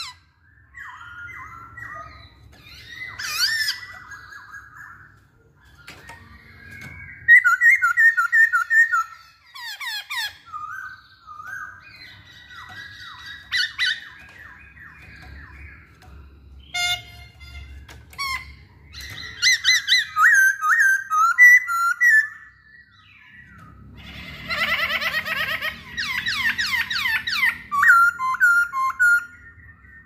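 Black-throated laughingthrush (poksay Hongkong) singing in full voice: varied loud whistled phrases, quick runs of repeated notes and fast downward-sweeping notes, with short pauses between phrases.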